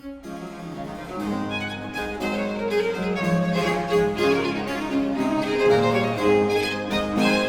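Instrumental music of bowed strings with harpsichord, starting softly and growing louder over the first second or so.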